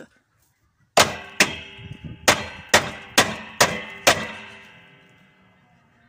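Seven hammer blows on the VW T5 Transporter's steel spare-wheel carrier bracket, each a ringing metal clang, with a short pause after the second. The carrier is being knocked across to seat on its locating groove. The ringing dies away about a second after the last blow.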